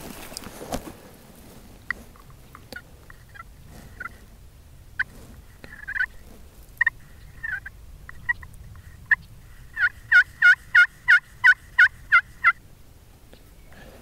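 Wild turkeys calling: scattered single clucks and short notes, then about ten seconds in a run of about nine loud, evenly spaced yelps, three or four a second. A brief rustle at the very start.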